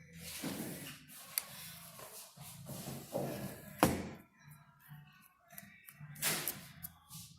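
Metal parts of a wire stitcher head being handled on a bench: irregular scraping and clicking, with one sharper knock a little past the middle.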